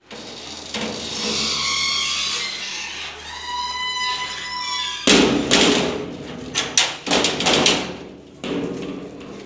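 Metal grille gate squealing with a high, partly gliding tone as it is moved. About halfway through come several loud metallic clanks and rattles as it is pushed shut.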